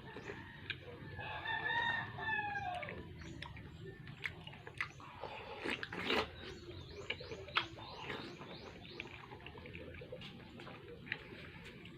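A rooster crowing once about a second in, a long call that drops in pitch at its end, followed by scattered light clicks and taps.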